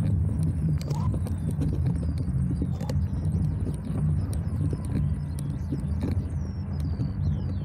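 Riding noise of a bicycle on a rough asphalt path: a steady low rumble from the tyres and from wind on the microphone, broken by small clicks and rattles from the bike. Thin, falling high chirps join in near the end.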